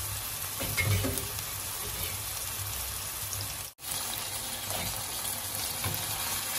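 Ribeye steak sizzling in hot oil in a nonstick frying pan, a steady crackling hiss of searing meat that cuts out for an instant a little under four seconds in.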